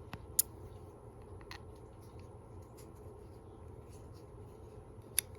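Small sharp clicks and taps from handling a Leatherman Wave multitool and its parts, with two louder clicks, one about half a second in and one near the end, over a faint steady hum.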